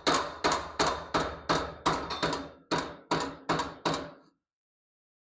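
Steady hammer blows on metal, about two and a half strikes a second, each with a short metallic ring, stopping about four seconds in. They are typical of knocking a tight-fitting roll-cage tube into position.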